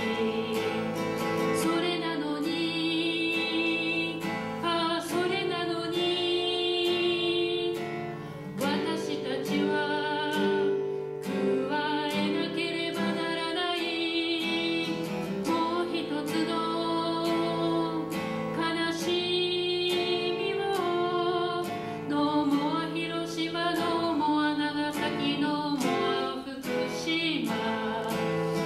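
A woman singing a slow song solo, accompanying herself on acoustic guitar. The voice holds long notes between short breaths while the guitar plays on underneath.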